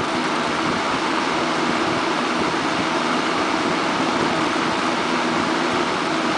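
Windsor C-14 box fan running steadily on its high setting: an even rush of air from the blades over a low motor hum, on a test run after restoration.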